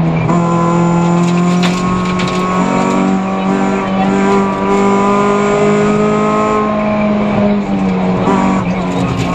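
Peugeot 206 F2000 rally car's four-cylinder engine running hard at high revs, heard from inside the cockpit. The engine note shifts just after the start, climbs slowly through the middle and drops near the end, with a couple of sharp knocks from the car.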